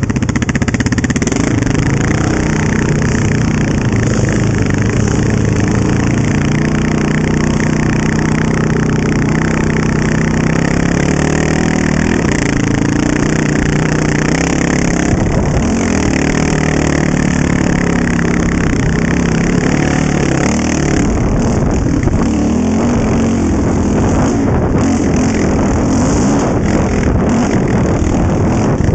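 Honda TRX700XX ATV's single-cylinder engine under way on a trail, its pitch rising and falling as the throttle is worked, with wind noise over it.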